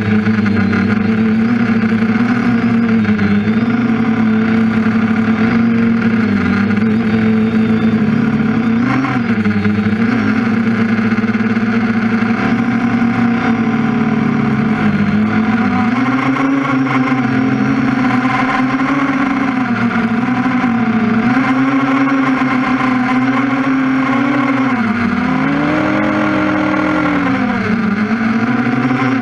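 TBS Discovery quadcopter's motors and propellers whining, heard from the onboard camera; the pitch keeps rising and falling as the throttle changes, with a few deep dips and climbs back up.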